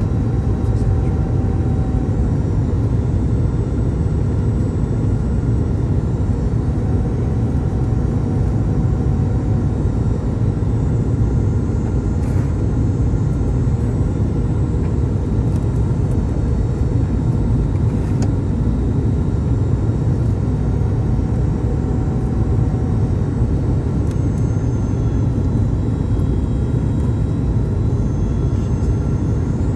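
Steady in-flight cabin noise of a Boeing 737 MAX 9 on its arrival descent, heard beside the wing: the low rumble of airflow and the CFM LEAP-1B turbofan engines. Faint steady whines sit above the rumble, and a faint higher tone comes and goes a few times.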